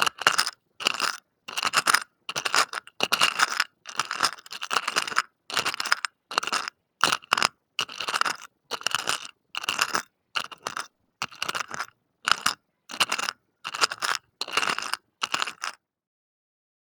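Small hard plastic trinkets such as beads and clips clattering in short rattling bursts, a little under two a second. The bursts stop shortly before the end.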